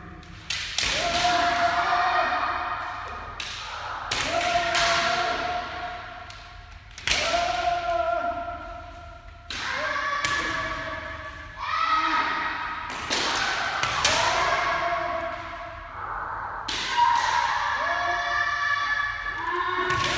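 Kendo sparring: sharp cracks of bamboo shinai striking armour, each with a long drawn-out kiai shout, over and over about every two to three seconds from several pairs at once, echoing in a large hall.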